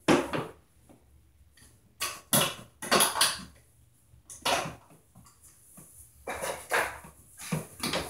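Irregular knocks, scrapes and clatter of hand work with tools and parts at an electrical box in a wall, in short separate bursts with quiet gaps between.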